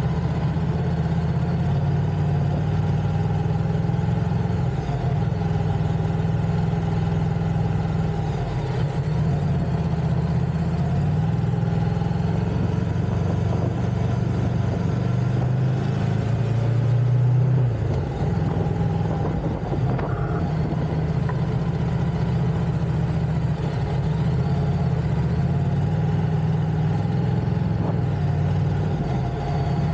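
Motorcycle engine running on the move. Its note swells about halfway through and drops away sharply a couple of seconds later, then settles back to a steady run.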